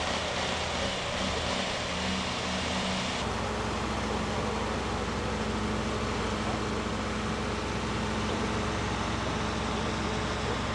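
Engine of a portable fire pump running steadily at working speed. About three seconds in, the sound cuts to a deeper, steady engine hum.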